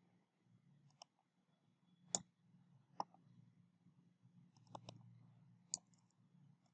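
Faint, scattered clicks of a computer mouse and keyboard during code editing, about six in all with a quick cluster a little past the middle, over a faint low steady hum.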